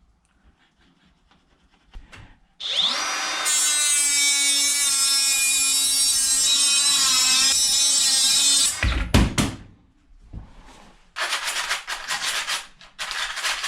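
A power saw spins up with a rising whine and runs steadily for about six seconds, cutting a length of Wiremold raceway channel to size, then stops with a low thud. From about eleven seconds in come quick rhythmic rubbing strokes, smoothing the cut end.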